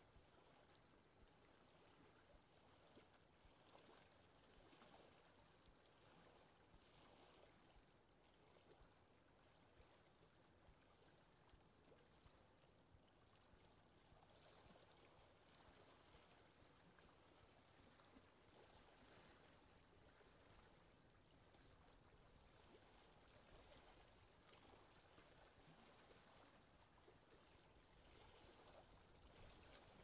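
Faint, gentle lake water lapping: a soft, even wash of small ripples with no distinct splashes.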